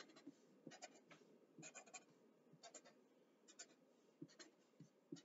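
Black Sharpie permanent marker scratching faintly on paper in short quick strokes, often two at a time, as small fur marks are drawn.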